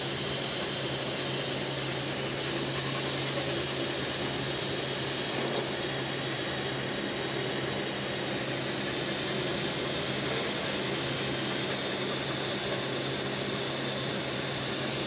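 Handheld gas torch burning with a steady hiss, heating a tight-fitting transmission coupler on the crankshaft end so it will come off.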